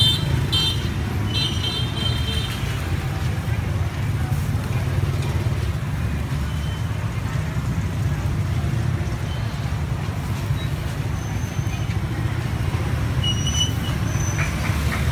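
Street ambience: a steady low rumble of traffic with voices in the background, and a few short high tones in the first couple of seconds.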